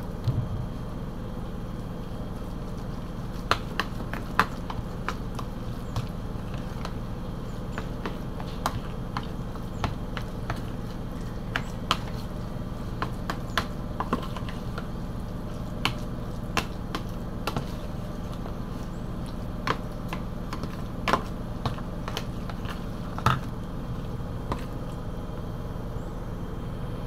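Metal spoon mixing a wet ground-meat and vegetable filling in a plastic container, with irregular clicks and taps of the spoon against the container over a steady low hum.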